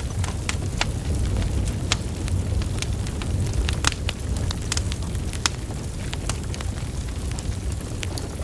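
Wood fire burning: a steady low rumble of flames with irregular sharp crackles and pops from the logs, a few louder snaps near the middle.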